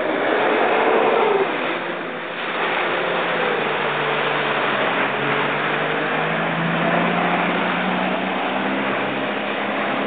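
Four-wheel-drive vehicle engines running under load while driving through a flooded river, with a dense rush of splashing water around the wheels; the engine note wavers slowly up and down.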